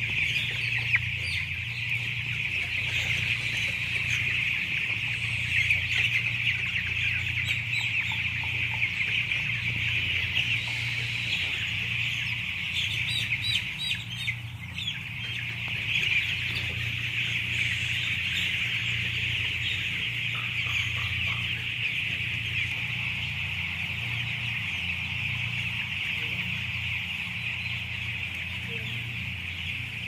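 A large flock of young broiler chickens peeping and cheeping without a break, many birds at once, over a low steady hum.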